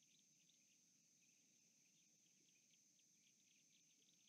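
Near silence: faint outdoor ambience with a steady high insect drone and many quick, short chirps.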